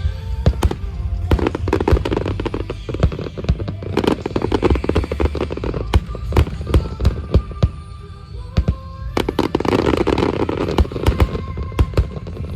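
Large aerial fireworks shells bursting in quick succession: many sharp bangs with crackle, coming thickest about two, four and ten seconds in. Music plays underneath.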